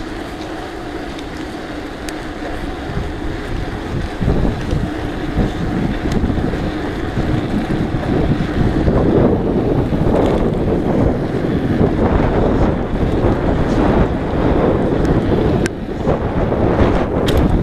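Wind buffeting the camera microphone during a bike ride, with steady rushing noise from the moving bike, getting louder about halfway through.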